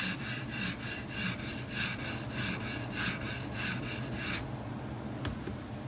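Edge Pro sharpener's diamond matrix stone stroked quickly back and forth along a knife edge, an even run of rasping strokes that stops about four seconds in. A faint click follows near the end.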